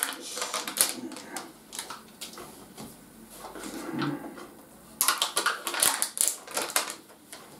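Foil lids being peeled off plastic Skyr cups: rapid crackling and clicking of the foil and cups, in two spells, at the start and again about five seconds in.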